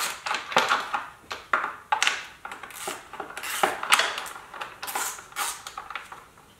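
Factory air cleaner backing plate and filter assembly being worked loose by hand and pulled off a Harley-Davidson Twin Cam engine: a quick, irregular run of scrapes, rubbing and light knocks that stops near the end.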